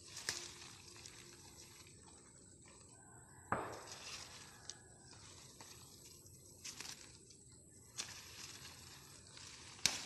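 Leaves and stems rustling and crackling in several short bursts as a hand pushes through dense plants. The loudest rustle comes about three and a half seconds in, over a faint background.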